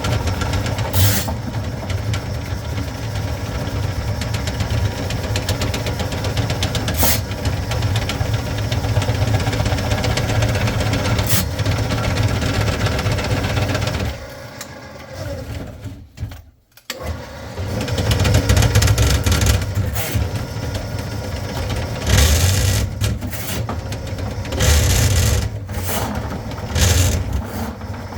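Drain-cleaning machine running steadily with a few sharp clicks, cutting out briefly about halfway through and then starting up again.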